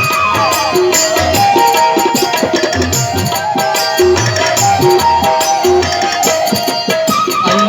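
Instrumental music with a tabla playing a steady rhythm under a melody line of held and gliding notes.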